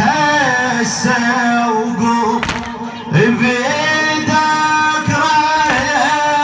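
Male voice chanting a latmiya, a Shia mourning lament, in long melismatic held and wavering notes over a steady low drone. Two sharp strikes cut in, one about two and a half seconds in and another near the end.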